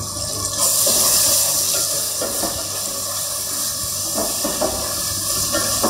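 Spiced onion-tomato masala sizzling in a pot as curd is stirred in: a steady hiss that comes up about half a second in, with a wooden spatula scraping the pot.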